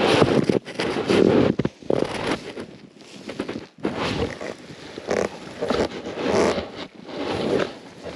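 Snow crunching and scraping against the camera and snowboard in short irregular bursts, about one a second, as the board is shoved through deep snow.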